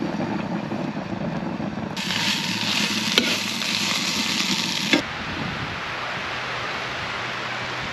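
Breakfast of bacon, eggs and hash browns frying in a pan, sizzling and being stirred. The sizzle is loudest from about two to five seconds in, with a sharp click partway through.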